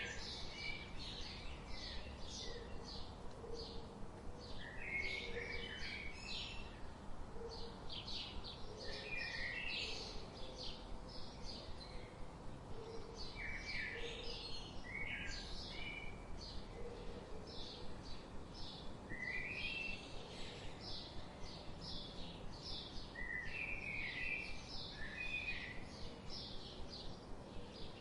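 Birds chirping: rapid series of short, high chirps in repeated clusters, with faint short low notes underneath, over a soft steady background.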